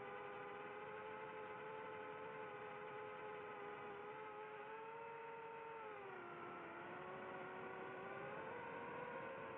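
FPV quadcopter's electric motors and propellers whining steadily in flight, as several close tones. The pitch drops about six seconds in as the throttle comes off, then climbs again near the end.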